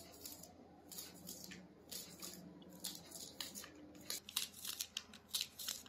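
Green onions being peeled and trimmed by hand with a small knife: faint, irregular crisp tearing of the papery outer skins, busier in the second half.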